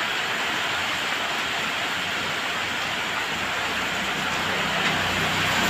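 Steady downpour of rain, an even hiss. From a little past halfway a low engine hum of a vehicle joins in and grows louder toward the end.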